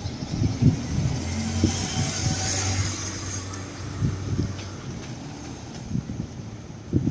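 A motor vehicle passing on a road: a low engine hum with tyre hiss that swells about two seconds in and fades out, with several short low thumps.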